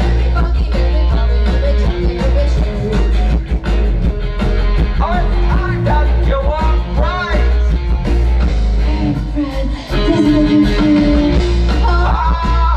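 A new wave rock band playing live through a loud festival PA: electric guitars, bass and drums, heavy in the low end, with a singing voice coming in now and then.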